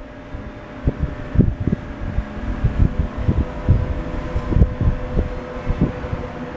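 Corded electric hair clipper running with a steady hum while it cuts hair at the temple, with irregular low thumps.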